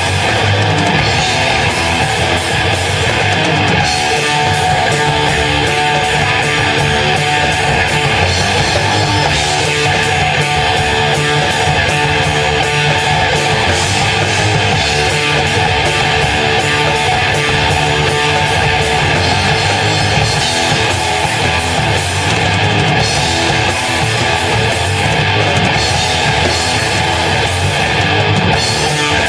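Rock band playing live: loud, heavy electric guitar with a steady beat.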